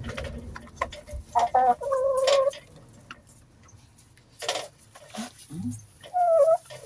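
Chickens clucking: a few short calls about a second in and again near the end, with a brief knock in between.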